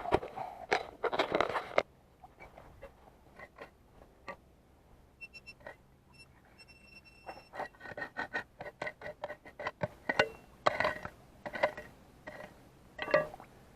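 A hand digger scraping and crunching into soil in irregular short strokes. In the middle comes a run of short, evenly spaced electronic beeps from a metal detector pinpointer homing in on the buried target.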